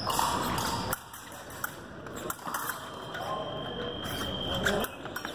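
Foil fencers' footwork on a metal piste, with scattered sharp taps and clicks of feet and blades echoing in a large hall. A faint steady high tone sounds from about three seconds in for under two seconds.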